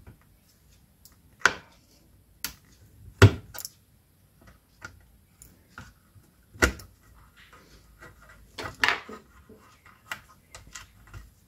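Hands handling a small circuit board and its wires inside an opened plastic voltage-stabilizer case: a string of irregular clicks and knocks, the loudest about three seconds in, with a short cluster near the end.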